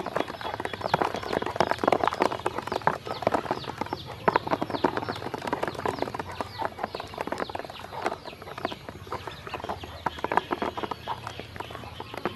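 A group of ducklings peeping continuously, many short downward-sliding peeps overlapping, over a quick, busy clatter of bills and feet tapping the plastic basin as they peck feed from the water.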